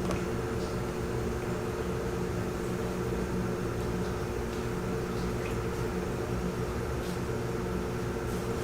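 Steady mechanical hum, with a few faint clicks over it.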